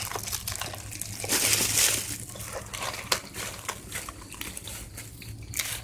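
Wet cat food being opened and emptied out: soft wet squelching and sloshing with scattered small clicks, heaviest about one and a half seconds in.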